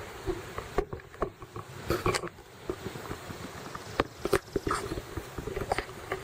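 Irregular light knocks, clicks and rustles, a couple of them sharper, with no engine running.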